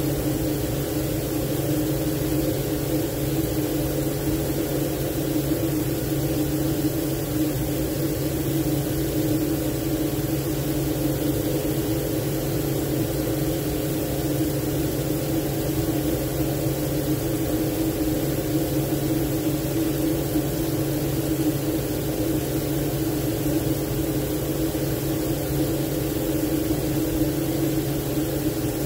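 A steady, unchanging machine hum: a low drone under a stronger mid-pitched hum.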